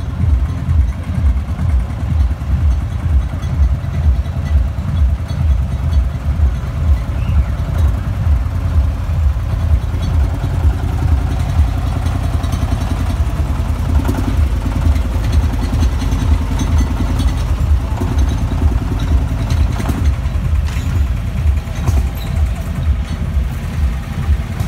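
Vintage tractor engine running slowly as the tractor passes, a loud, steady, low rhythmic chugging.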